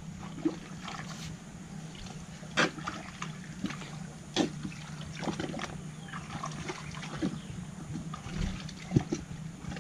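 Water splashing and sloshing in a shallow, muddy creek as hands grope along the bank underwater, in short irregular splashes over a steady low hum.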